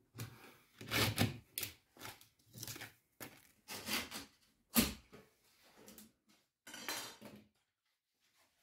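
Utility knife scoring abrasive sanding-belt paper along a straightedge: a string of short scraping strokes with gaps between them, and the stiff paper rustling as it is handled. The paper is only scored, not cut through, so it can be snapped along the line.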